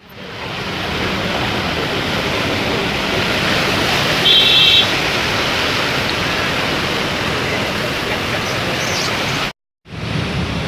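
Heavy rain pouring down, a steady loud roar of rain and running water. About four seconds in, a brief high-pitched tone sounds for half a second. The sound cuts out briefly near the end.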